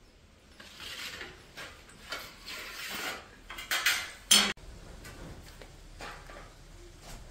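Metal clinking and scraping of a stainless-steel hand-cranked sev press being screwed together and handled, growing louder up to a sharp clank a little past four seconds in. After that, only faint small sounds as dough is cranked out of the press.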